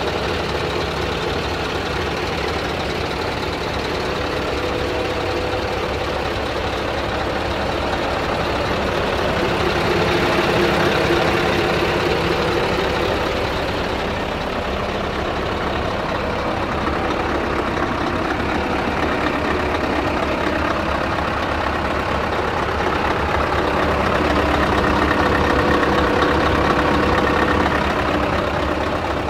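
Scania R truck's diesel engine idling steadily. It grows somewhat louder around ten seconds in and again for a few seconds about twenty-five seconds in.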